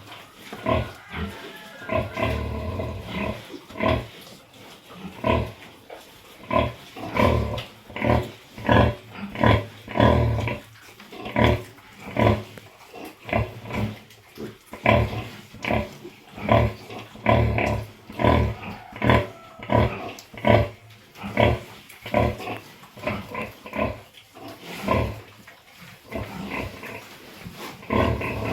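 Pig grunting: short grunts repeating steadily, about one or two a second.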